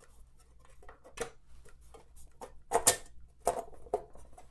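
Scattered light clicks and knocks of the Singer 401A's sheet-metal bottom cover being handled and seated onto the machine's underside, the loudest knock a little under three seconds in.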